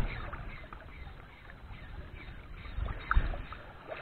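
Shallow seawater lapping and sloshing, with a low wind rumble on the microphone and a slightly louder splash about three seconds in.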